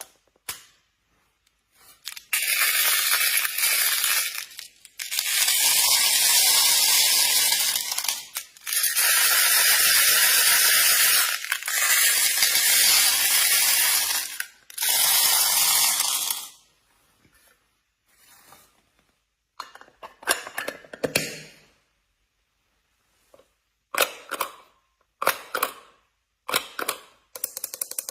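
Water spraying from a shower head in four long hissing stretches that switch on and off abruptly, followed near the end by scattered short clicks and rattles.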